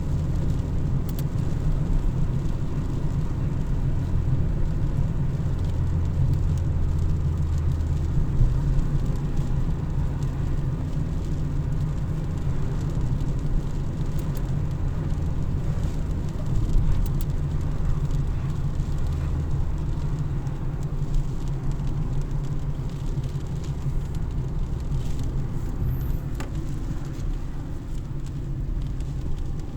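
Car driving on the road: a steady low rumble, with a few faint light ticks here and there.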